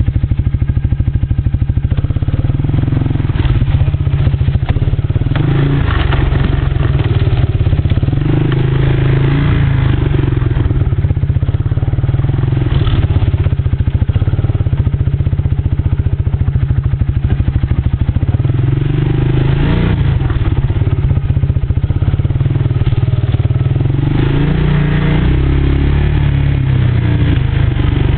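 ATV engine running while being ridden along a rough trail, its note rising and falling with the throttle, with the machine clattering over bumps.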